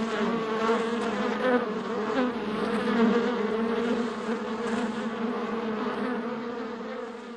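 Beehive buzzing: many bees making a steady droning hum, beginning to fade near the end.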